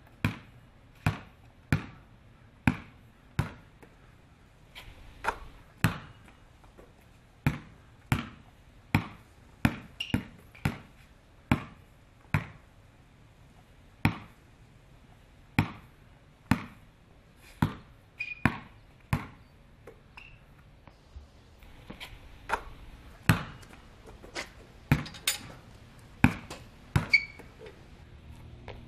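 A basketball being dribbled on hard outdoor pavement: sharp, separate bounces at an uneven pace of about one to two a second, with a short lull about two-thirds of the way through.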